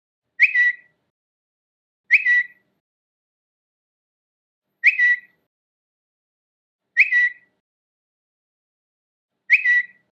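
Twitter notification sound: a short, high double chirp, heard five times with silence between.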